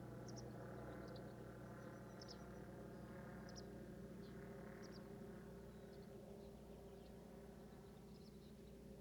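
Faint, short, high bird chirps, scattered at irregular intervals, over a low steady hum.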